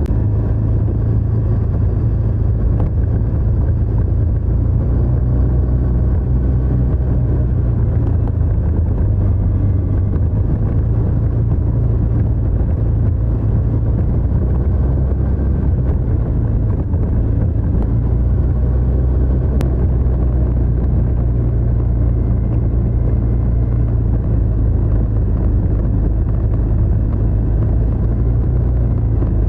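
TVS NTorq 125 scooter's single-cylinder engine running through its stock exhaust while riding, a steady low drone whose pitch shifts a little now and then with the throttle.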